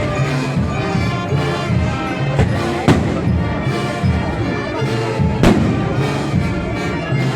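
Procession brass band playing a slow march, with low brass and held chords. Sharp bangs cut through the music twice, a few seconds apart.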